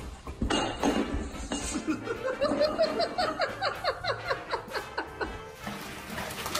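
A person laughing hard in a long run of rapid 'ha' bursts that stop about five seconds in, with music playing underneath.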